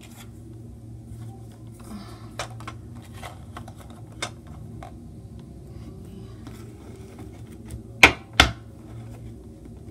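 Tarot cards being handled and set down on a marble tabletop: scattered light clicks and taps, with two sharp knocks in quick succession about eight seconds in.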